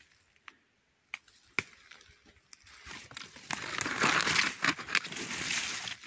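Footsteps rustling through dry fallen leaves and forest undergrowth. It is quiet at first with a few light clicks, then the rustling grows loud from about three seconds in.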